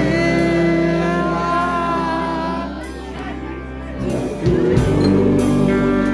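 Live rock band playing: electric guitars with a male singer's voice over them. The band drops back briefly about three seconds in, then comes back in loud.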